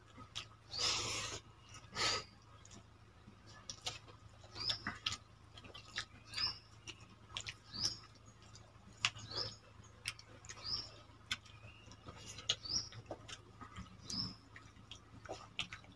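Quiet eating sounds, with hands squishing and mixing watered rice in steel bowls, a few soft smacks and clicks. Behind them a small bird chirps repeatedly, short high chirps every second or so.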